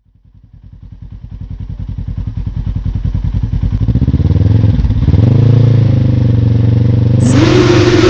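Polaris RZR side-by-side engine running, fading in as an even low pulsing and settling into a steady drone about five seconds in. Near the end it gets suddenly louder and rougher, its pitch rising and falling as it revs.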